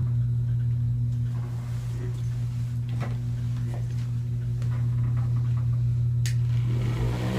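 Steady low hum, with a few faint taps and one sharp click about six seconds in.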